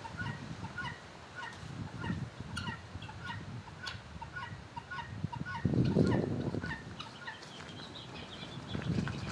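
Domestic fowl calling in a steady run of short repeated notes, several a second. A louder low rumble comes in briefly about six seconds in.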